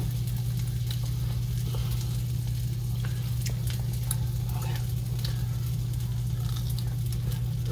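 Food sizzling in a frying pan, with scattered small crackles and pops, over a steady low hum.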